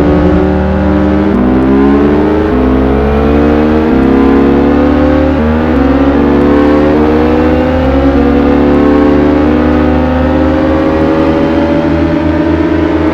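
Four-cylinder superbike engine at high revs accelerating through the gears: its pitch climbs, then drops sharply at each upshift, every second or two.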